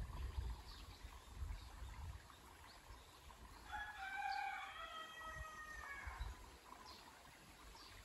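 A rooster crowing once, a single call of about two and a half seconds starting about four seconds in, with a few faint short bird chirps and a low rumble in the first couple of seconds.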